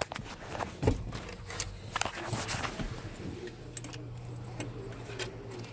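Scattered clicks, knocks and light rattles of hands working on wiring connectors and parts under a pickup's dashboard. A steady low hum comes in about halfway through.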